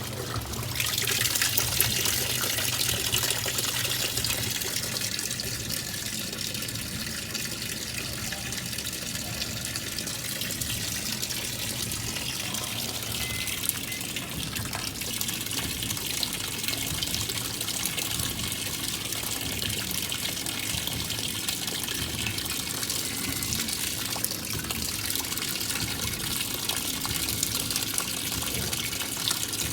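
Water running into a washing machine as it fills: a steady rushing and splashing that holds evenly throughout.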